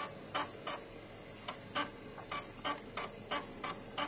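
Amiga 1200 floppy drive clicking as its head steps from track to track, reading the Workbench 3.1 disk while the installer copies files. About three sharp clicks a second, with a short gap near one second in, over a faint steady hum.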